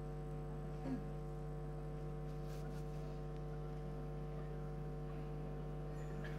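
Steady electrical mains hum, a low buzz with evenly spaced overtones that does not change, plus a faint brief sound about a second in.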